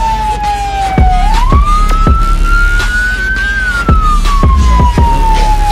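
Hip-hop beat with a police-siren wail woven into it: one siren tone falls slowly, sweeps back up about a second in, climbs gently, then falls again from about halfway. Under it run a heavy deep bass and kick-drum hits.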